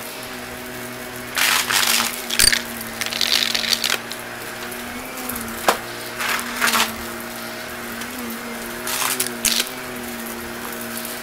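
Shark Navigator upright vacuum running with a steady motor hum as it is pushed over carpet. Several short bursts of rattling and crackling come as grit and debris are sucked up, with one sharp click about halfway through.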